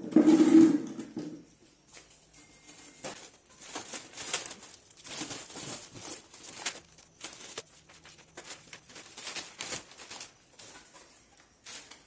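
Plastic wrapping film on a washing machine's packaging crinkling and rustling in irregular bursts as it is handled and pulled off. It opens with a short, louder, low pitched sound in the first second or so.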